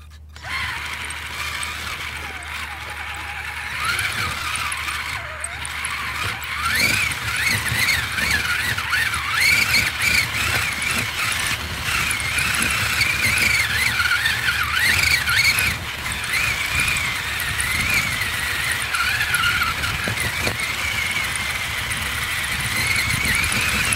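Electric motor and gear drivetrain of a radio-controlled Axial Wraith rock crawler, heard from a camera mounted on the truck: a high whine whose pitch rises and falls with the throttle, over a low rumble.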